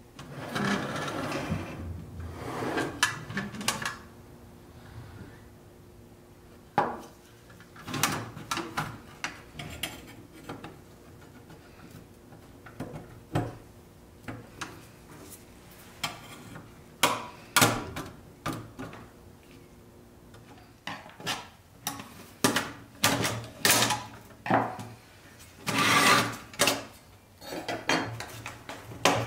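Pressed-steel toy car being taken apart by hand with a small tool: scattered metal clinks, knocks and scrapes as tabs are pried and parts are handled and set down, with a longer scraping rub in the first few seconds and a quick run of knocks near the end.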